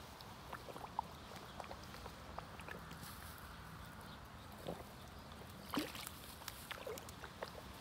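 French bulldog snuffling at the water's edge: a few short, faint snuffles, the loudest a little after halfway.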